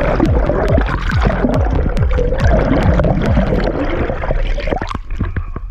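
Background music with a steady beat and repeated falling bass notes, cutting out about five seconds in.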